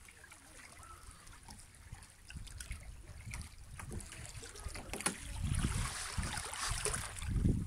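Wind buffeting the microphone of a hand-held phone. It is faint at first, then comes in stronger gusts of low rumble through the second half, with a few sharp handling clicks.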